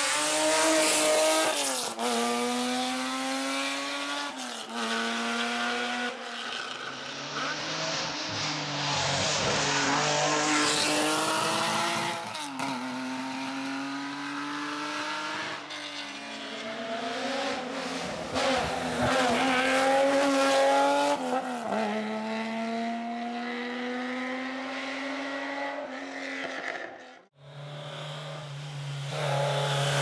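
Historic rally cars driven flat out on a closed road stage, one after another. Each engine revs hard, climbing in pitch through each gear and dropping back at every upshift. The sound cuts out sharply near the end, then another car's engine comes in.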